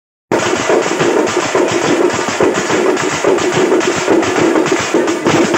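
Frame drums beaten in a fast, steady, loud rhythm.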